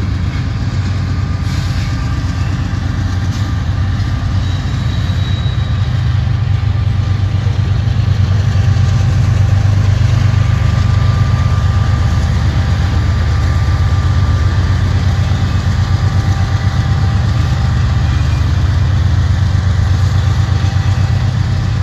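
A pair of CSX diesel locomotives moving past at low speed, their engines running with a steady low drone and a faint higher whine. It grows a little louder midway as they pass closest.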